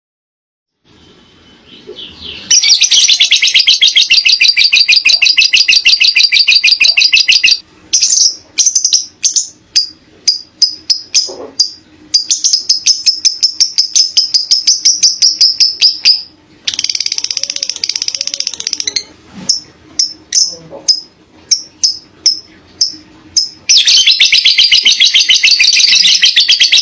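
Lovebird giving its long chattering trill ('ngekek'): several runs of very rapid high-pitched chatter, each a few seconds long, broken up by strings of separate sharp chirps.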